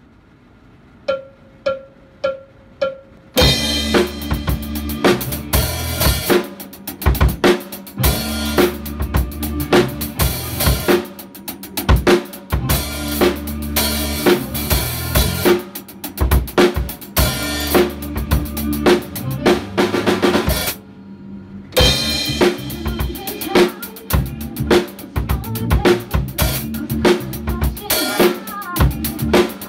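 Acoustic drum kit played: a short count-in of evenly spaced clicks, then a busy rhythm of bass drum, snare and cymbal strokes. About two-thirds of the way through the playing stops for about a second, then starts again.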